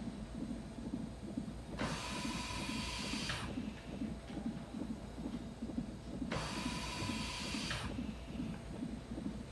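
A mechanical hiss with a faint whine comes in twice, each time for about a second and a half, about four and a half seconds apart, over a low, quickly fluttering rumble.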